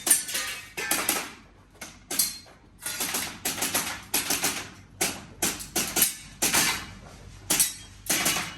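Airsoft gun firing a rapid string of shots, about fifteen sharp cracks in quick irregular groups, each with a short metallic ring.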